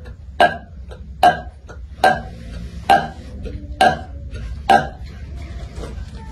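A person belching loudly, six short burps a little under a second apart. This is the repeated belching that burp massage (pijat sendawa) is meant to bring on.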